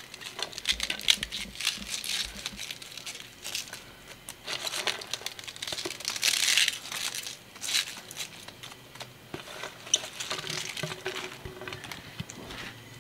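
Shredded cabbage being scraped off a plate into a wok of simmering lomi broth: irregular rustling and scraping, with a louder rush of rustling about six and a half seconds in.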